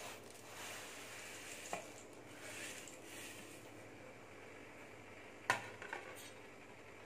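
Faint steady hiss of a steel pot of water heating on a gas burner as dry noodles are slid and pushed into it, with a few sharp clinks of the plate against the pot, the loudest about five and a half seconds in.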